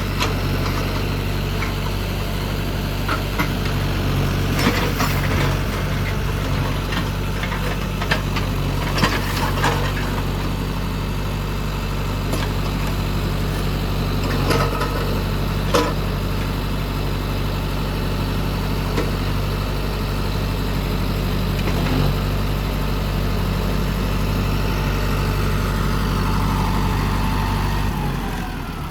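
Mahindra tractor's diesel engine running steadily under a backhoe, with scattered sharp knocks and clanks. The engine sound drops away near the end.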